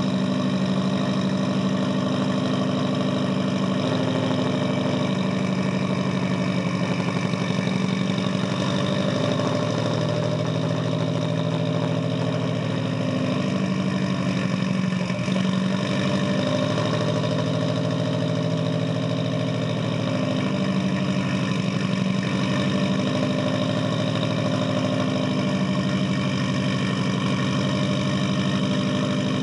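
A 2005 Subaru Impreza WRX STI's turbocharged flat-four engine idling after a cold start, heard at the tailpipe through its modified aftermarket exhaust. The idle is steady, wavering slightly in pitch every few seconds.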